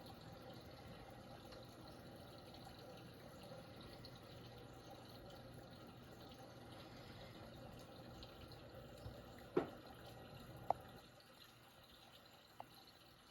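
Faint, steady trickle of water with a few sharp clicks past the middle, the loudest two about a second apart.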